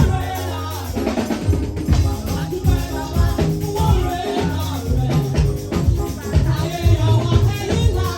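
Upbeat music with singing over a drum beat and a shaker.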